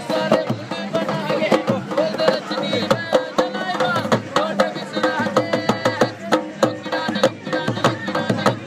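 Indian folk music with a fast beat on a dholak hand drum and a voice singing a bending melody over it.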